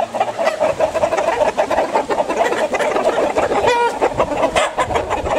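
Many chickens, gamecocks among them, clucking together in a dense, continuous chatter, with one louder, higher call standing out a little before four seconds in.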